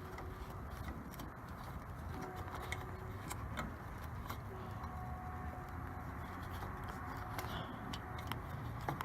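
A few faint, scattered clicks of a headlight mounting bolt being worked out by hand, over a steady low background hum.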